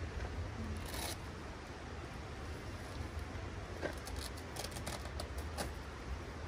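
Light clicks and scrapes of camp gear being handled, one about a second in and a quick cluster between about four and six seconds, over a steady low rumble.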